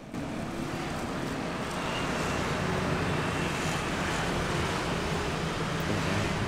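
Steady roadside street noise: a constant low rumble under an even hiss, with no distinct events.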